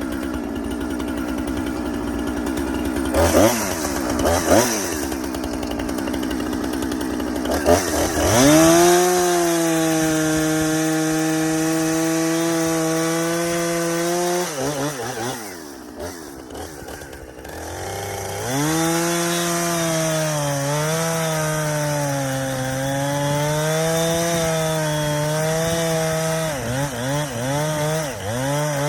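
Two-stroke chainsaw blipped twice, then held at full throttle for several seconds before dropping back to idle. It goes to full throttle again with its pitch sagging and recovering under load as it cuts wood, ending in a string of quick throttle blips.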